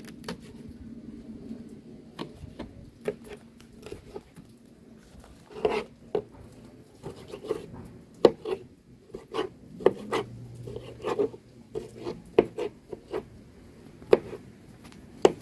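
Kitchen knife cutting scotch bonnet pepper and tomato: irregular sharp taps of the blade striking the cutting surface, a few to a couple per second.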